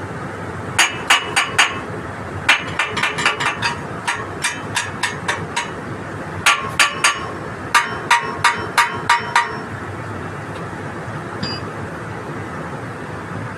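Hammer tapping on metal during a drainage pump repair, in several quick runs of blows, about three to five a second, each with a short metallic ring. The blows stop after about nine and a half seconds.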